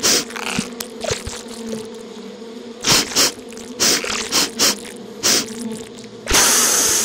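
Cartoon bee sound effect: a steady, even-pitched insect buzz. It is cut through by repeated short, loud hissing bursts, with a longer one near the end.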